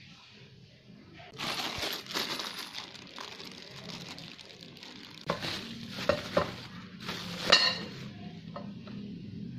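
Bubble wrap and plastic bags crinkling as brake-kit parts are unwrapped and handled, with a few sharp metal clinks of parts knocking together, the loudest about seven and a half seconds in.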